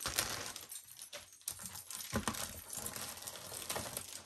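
Irregular light clicks and taps of small boxes and packaging being handled and set down.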